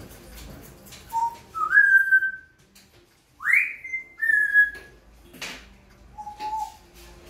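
A person whistling a series of short notes, among them a quick rising sweep, calling to get a small spitz dog's attention.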